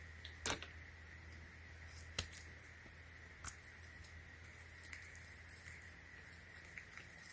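Faint handling noise: a handful of short, sharp clicks and taps as a small metal quick-release tripod plate is picked up and turned over, spaced a second or so apart, over a steady low hum.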